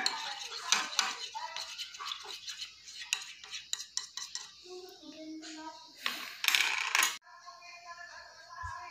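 A plastic spoon clicking and scraping against a plastic bowl as it stirs wet coffee grounds into a paste. There is a brief louder rushing noise about six seconds in.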